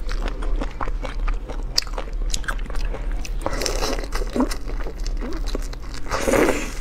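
Close-miked eating sounds of seafood being bitten and chewed: dense, irregular crunching and small cracks, with a couple of louder noisy bursts, one about halfway and one near the end.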